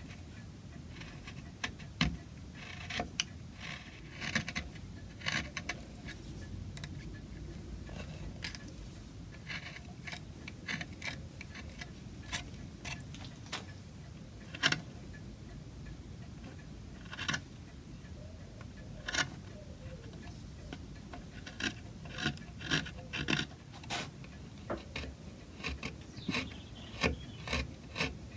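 Small hand carving gouge cutting walnut: short, irregular scraping cuts and clicks with pauses between, coming more often in the last few seconds.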